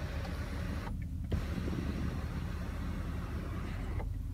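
Steady low rumble and hiss of a car's cabin background, with no distinct mechanism standing out. The hiss thins out briefly twice, about a second in and near the end.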